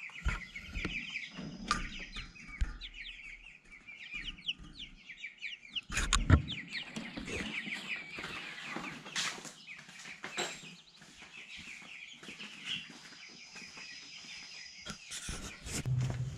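Young chicks peeping rapidly and continuously, each call a short downward slide in pitch. A thump about six seconds in, and a power tool starts running near the end.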